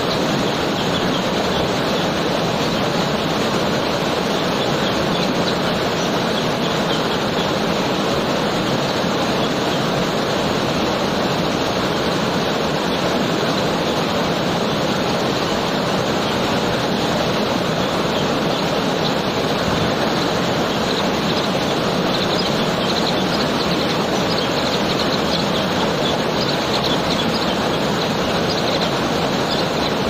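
Waterfall: water cascading over rock and splashing below, a steady rush with no break.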